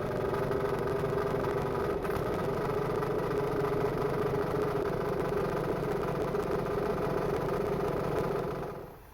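Engine-driven air compressor running steadily with an even, pitched hum, fading out near the end.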